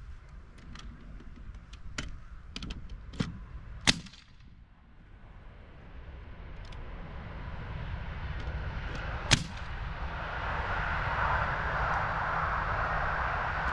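Pneumatic nail gun firing nails through OSB subfloor panels into timber joists: a quick run of sharp shots in the first four seconds and a single shot about nine seconds in. A steady hiss swells through the second half.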